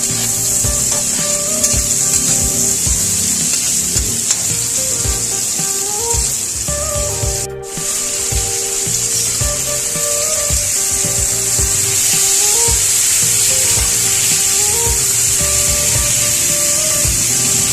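Food sizzling steadily in hot oil in a frying pan, with a brief break about halfway through.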